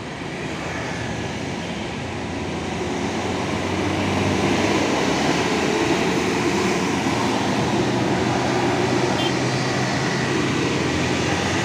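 Diesel tour bus climbing uphill past, its engine under load growing louder over the first few seconds and then holding steady.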